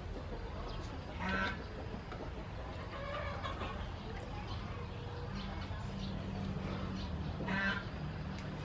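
A chicken calling twice: a short call about a second in and another near the end.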